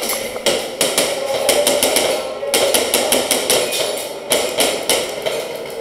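Airsoft guns firing in rapid volleys: sharp cracks about five a second, with short pauses between bursts.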